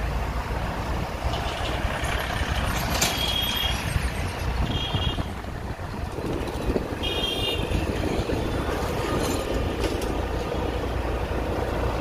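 Street traffic noise: a steady low rumble of passing vehicles with wind noise, broken by three short high-pitched beeps about three, five and seven seconds in.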